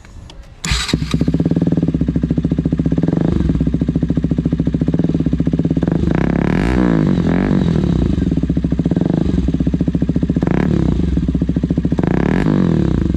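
KTM Duke 200's single-cylinder engine begins running about a second in. It idles with a steady pulsing beat and is revved with several quick throttle blips.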